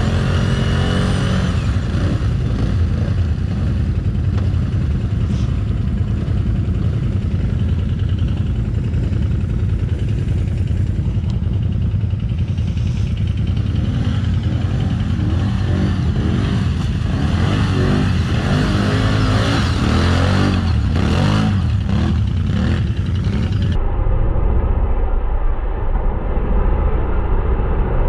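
Off-road vehicle engine running and revving, its pitch rising and falling again and again through the middle. About four-fifths of the way through, the sound abruptly turns duller and more muffled.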